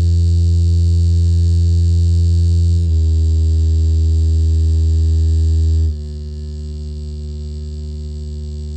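Riowois DS6701NP speaker playing a bass test: a steady low hum tone with a stack of overtones. It jumps to a new pitch about every three seconds, and after the second step it is much quieter.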